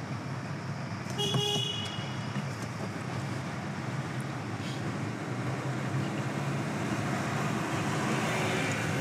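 Steady road and engine noise inside a moving car in city traffic, with one short horn toot about a second in.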